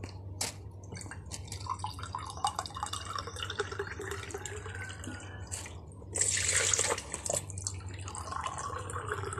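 Water poured from a drinking glass into a stainless steel pot, splashing and trickling, with a louder gush about six seconds in.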